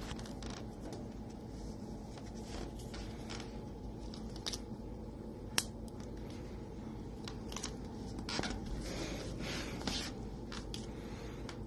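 Bengal kitten playing with a plastic drinking straw: scattered light clicks and scratchy rustles, with one sharper click about halfway through, over a steady low rumble.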